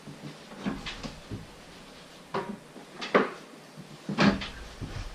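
A handful of short knocks and clunks over a faint steady hiss, the loudest about three and four seconds in.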